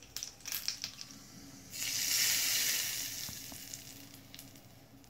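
Mustard seeds popping in hot oil in a small tempering pan, a scatter of sharp crackles. About two seconds in, a sudden loud sizzle as the hot mustard tempering hits the pumpkin chutney, fading away over the next two seconds.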